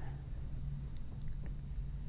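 Quiet studio room tone: a steady low hum with a faint hiss, and a couple of faint ticks about a second in.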